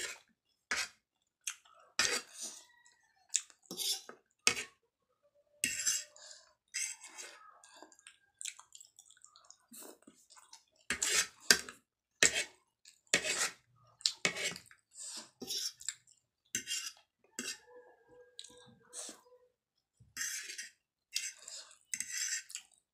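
Metal fork clinking and scraping irregularly against a ceramic plate while twirling and picking up chowmein noodles, with chewing sounds between the clinks.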